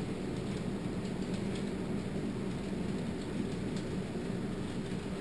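Steady low background noise, room tone, with a few faint ticks.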